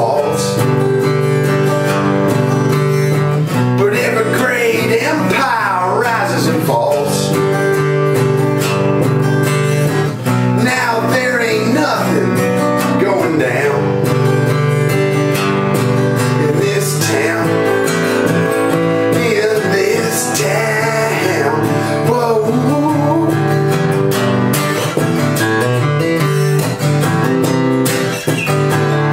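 An acoustic guitar strummed and picked steadily through an instrumental passage of a song.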